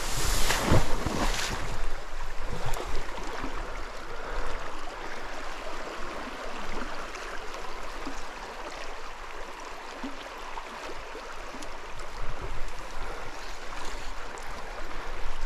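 River current running past a grassy bank: a steady rushing of moving water, with a brief louder burst of noise in the first second and a half.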